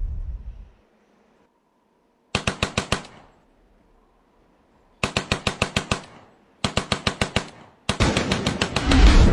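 AK-47 rifle firing in four short bursts of fully automatic fire, at about ten shots a second. The first comes after a low explosion rumble fades out in the first second, and the last runs on into a heavier low rumble near the end.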